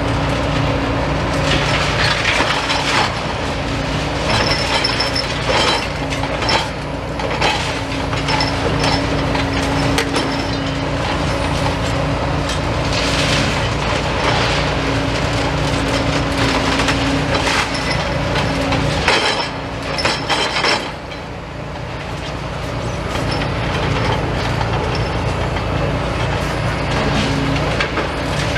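Demolition excavator engines running steadily, with repeated cracking and crunching as the machines' attachments break up wood and rubble. The low engine hum drops off for a couple of seconds about two-thirds of the way through, then comes back.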